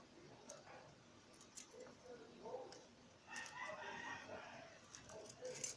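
A rooster crowing once, a long call starting about three seconds in. Light metallic clicks from pliers working the umbrella's wire ribs come now and then.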